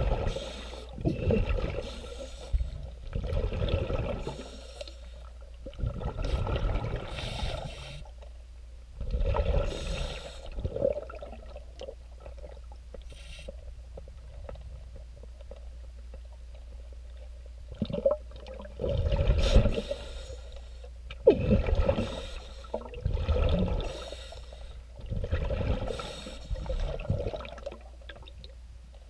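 Scuba regulator exhaust heard underwater: bursts of exhaled bubbles every few seconds, with a longer pause midway, over a steady low hum.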